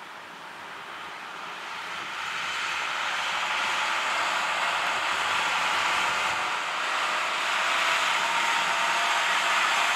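Small single-engine propeller airplane running as it rolls along the runway, the engine and propeller sound growing louder over the first few seconds and then holding steady.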